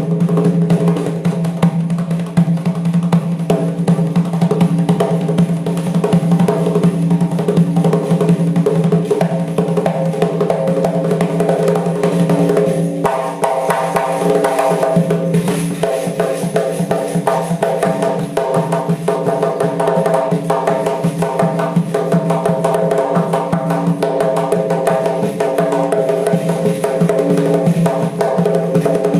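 Doira frame drum played in fast, continuous strokes and rolls, with no pause.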